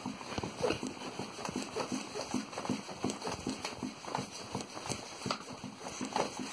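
Schwinn compact foot pump being worked with the foot in a fast, even run of strokes, each a short knock, inflating a bicycle tire toward 40 psi.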